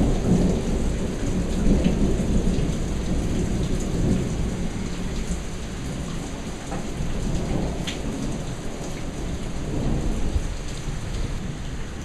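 Rain falling steadily with low rolling thunder rumbling underneath. The rumble is loudest in the first couple of seconds, then eases and swells again.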